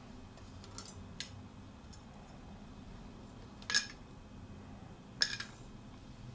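Light clicks of tubing fittings, then two short, sharp clacks about three and a half and five seconds in as a petri dish and its lid are handled and set down on the bench, over a low steady hum.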